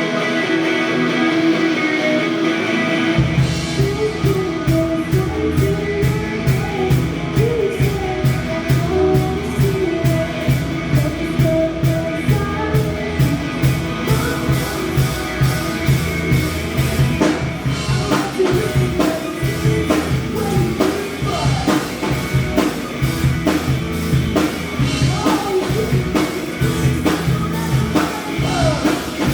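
Live rock band playing: a guitar alone at first, then drums and bass guitar come in about three seconds in with a steady beat under the guitar.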